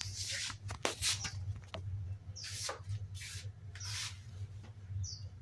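Handling noises, a string of clicks and short rustles, over a low steady hum, with one short bird chirp near the end.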